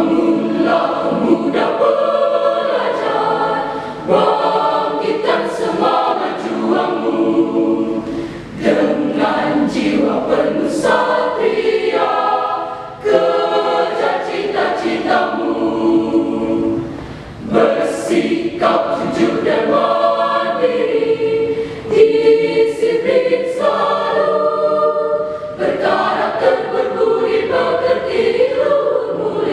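High school choir singing a piece in several voice parts, phrase after phrase with short breaths between them.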